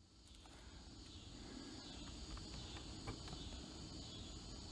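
Faint outdoor ambience: a steady high hiss with a low rumble underneath, and a few light clicks.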